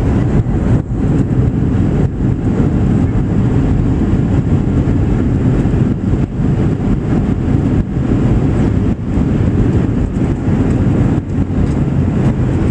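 Steady low rumble of cabin noise inside a Boeing 737-700 rolling on the ground after landing.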